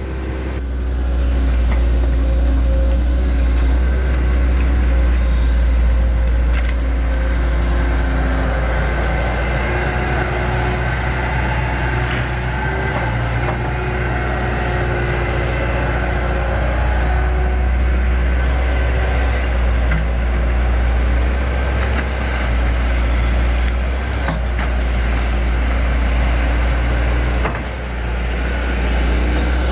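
Hydraulic excavator's diesel engine running steadily at working revs, with a few short knocks as it works.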